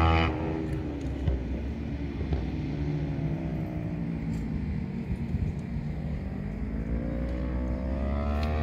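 A distant racing engine on the track. Its pitch falls over a few seconds as it slows, then climbs steadily as it accelerates again.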